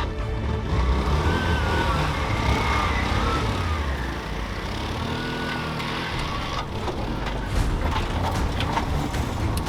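Motorcycle engine of a motorized tricycle running steadily as it is ridden, with a constant low rumble and some clattering in the last few seconds.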